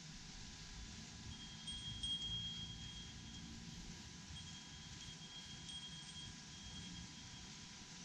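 Small hanging temple bells tinkling, a faint thin high ringing that comes and goes from about a second and a half in, over a low rumble.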